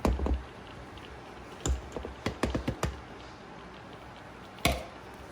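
Kitchen utensils tapping and knocking against a mixing bowl while cake batter is mixed by hand. There is a burst of knocks at the start, a quick run of taps about two to three seconds in, and one sharp knock near the end.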